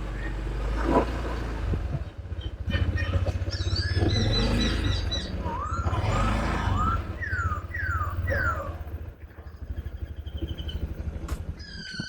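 A motor running with a rapid low throb, overlaid from about three seconds in by a series of short, high chirping calls that sweep up and down in pitch.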